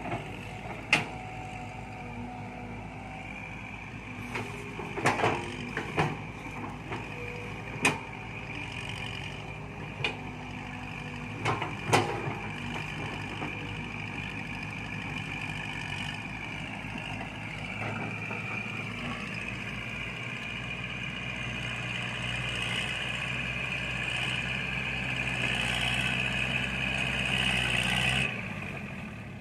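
Hydraulic excavator's diesel engine running, with several sharp metal clanks in the first twelve seconds; the engine then works harder and grows louder, easing off just before the end.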